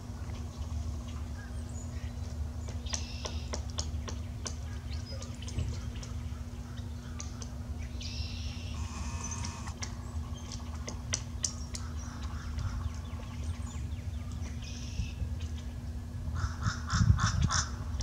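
Several bird calls over a low steady wind rumble, with scattered sharp clicks. Near the end a rapid series of about five calls.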